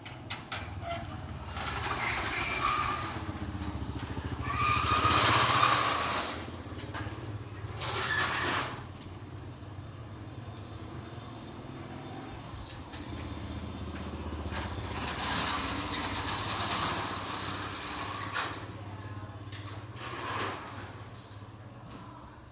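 Street traffic: motor vehicles passing by over a steady low hum, one swelling past a few seconds in and another about two-thirds of the way through.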